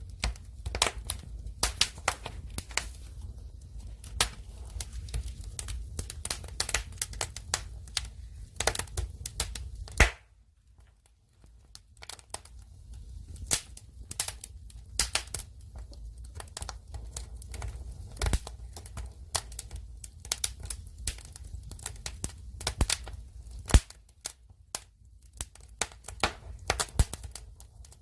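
Firewood fire burning, crackling with frequent irregular sharp pops over a low, steady rumble. The sound drops out briefly about ten seconds in.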